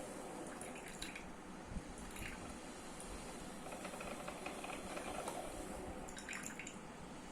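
Coffee maker brewing: a steady faint hiss of hot water with a few small drips.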